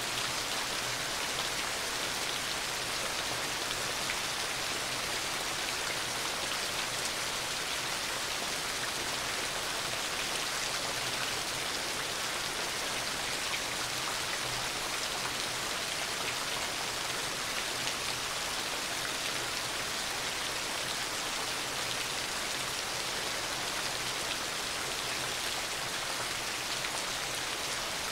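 Heavy rain falling steadily, a dense, even hiss of drops with no let-up and no thunder.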